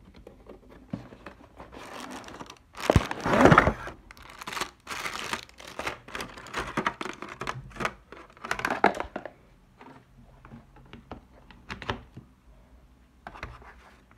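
Cardboard phone box and plastic packaging being handled and opened: irregular rustling, scraping and crinkling, loudest about three seconds in.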